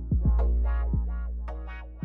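Electronic intro music: synthesizer chords over a deep, sustained bass, with several short drum hits that drop in pitch.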